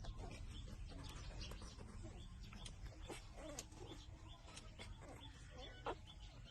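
Newborn puppies nursing: faint, rapid suckling clicks mixed with soft squeaks and grunts.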